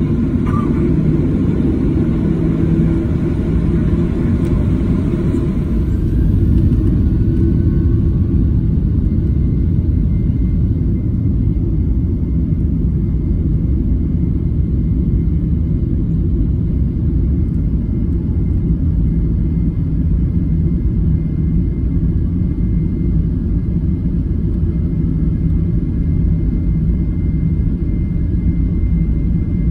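Jet airliner cabin noise while taxiing: a steady low engine rumble heard from inside the cabin, with a faint high whine from about ten seconds in.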